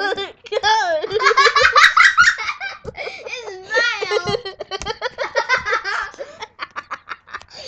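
Several kids laughing hard in fits of giggles, trailing off into short breathy bursts near the end.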